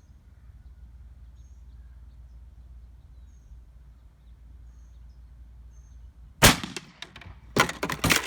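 A single loud shot from an AirForce Texan .457 big-bore air rifle about six and a half seconds in, followed a second later by a quick cluster of clattering knocks.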